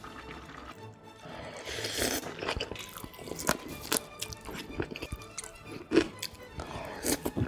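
Close-miked eating: crunching, biting and chewing of pork offal and gopchang hot pot, in a run of sharp clicks and short wet bursts, over background music.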